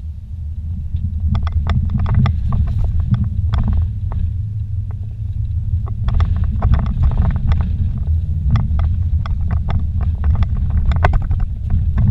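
A vehicle driving slowly over a rough dirt trail, heard from inside the cabin: a steady low engine and tyre rumble with many sharp knocks and rattles as it jolts over ruts and stones.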